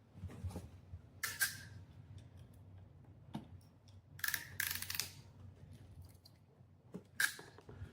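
Hand tool snipping and clicking as a pass-through RJ45 connector is crimped onto solid-copper Cat6 cable and the wire ends are cut off. There are short sharp snips about a second in, a louder cluster of several around four to five seconds in, and one more near the end.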